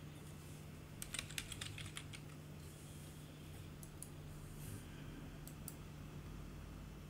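Computer keyboard typing, faint: a quick run of about eight keystrokes about a second in, then a few scattered key presses.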